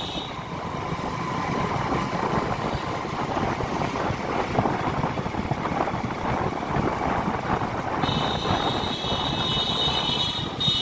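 Motorcycle running along a city street, with engine, tyre and wind noise mixed with surrounding traffic. A high steady tone joins about eight seconds in.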